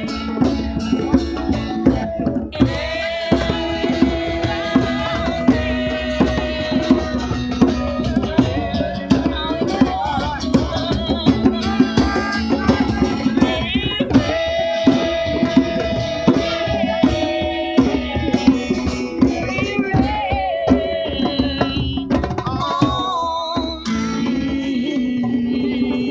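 Live acoustic music: hand drums, including a goblet drum and a frame drum, playing a busy rhythm with acoustic guitar and long held melody notes over it.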